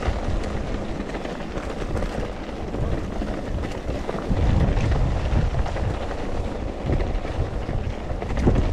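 Mountain bike riding down a dirt and gravel trail: wind rumbling on the handlebar camera's microphone over tyres rolling on the gravel, with scattered knocks and rattles from the bike over bumps.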